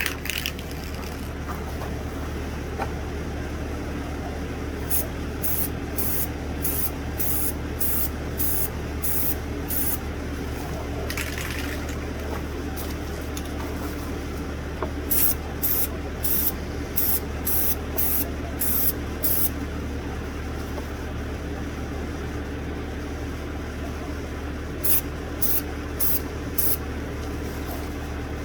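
Aerosol spray paint can let off in short bursts, about two a second, in three runs, laying on a coat of white paint. A steady low hum runs underneath.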